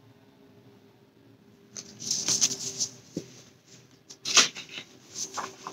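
Pages of a picture book being turned and handled: a paper rustle about two seconds in, then a few short sharp flaps.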